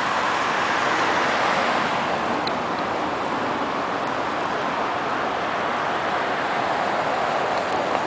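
Steady, even rushing outdoor noise with no distinct events, the kind made by fast-moving floodwater or distant road traffic.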